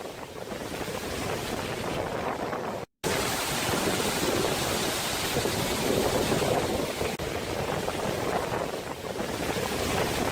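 Steady rushing noise of wind and water, with wind buffeting the microphone; it cuts out for a split second about three seconds in.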